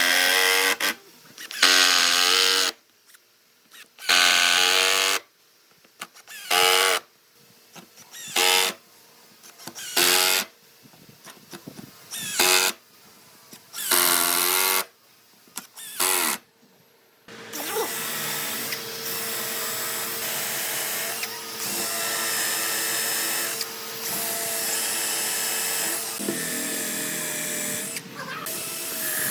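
Electric drill run in about nine short trigger bursts, each whirring up and winding down, for roughly the first seventeen seconds. After that a power tool runs steadily with a constant hum.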